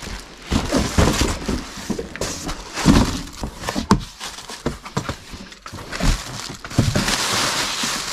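Cardboard boxes and packaging being handled: rustling and scraping with irregular knocks, and a longer stretch of scraping noise near the end.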